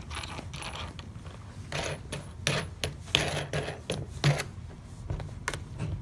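Handling noise of a wooden hand bobbin winder being clamped to a table: scattered clicks, light knocks and rustles, busiest in the middle, with a sharp click near the end.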